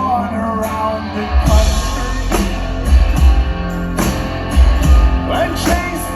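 Live band music between sung lines: guitar over a heavy bass and a drum kit with regular cymbal hits.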